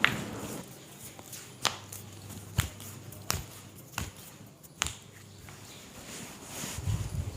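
Joints cracking during chiropractic manipulation: a series of six sharp cracks at uneven intervals of about a second, the first the loudest.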